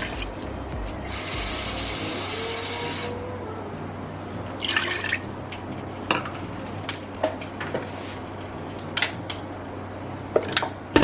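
Water running from a kitchen tap into a pot for about two seconds, followed by scattered clinks and knocks of cookware being handled.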